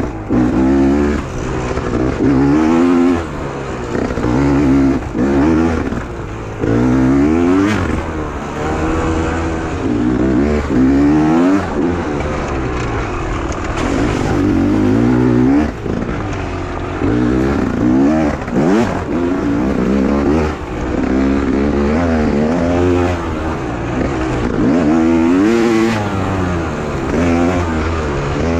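Beta 300 two-stroke enduro motorcycle engine, revving up and falling back over and over as the rider works the throttle, with brief dips between the pulls.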